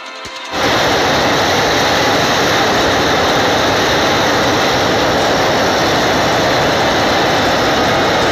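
Loud, steady rushing of a muddy flash-flood torrent, starting abruptly about half a second in.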